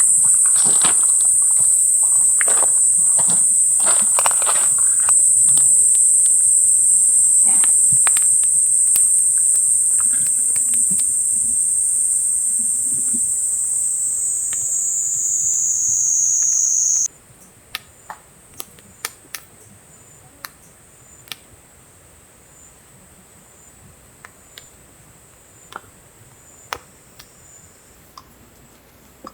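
Loud, steady high-pitched drone of a summer insect chorus, with scattered light clicks and taps. About two-thirds of the way in, the drone drops in pitch and then cuts off abruptly. What follows is much quieter: faint, evenly spaced insect chirps a little more than once a second, with occasional small clicks.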